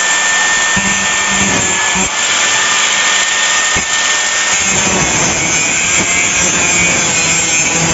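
Handheld electric power tool running at full speed with a steady high whine over a rough, grinding noise. The whine drops away about four and a half seconds in while the rough working noise goes on.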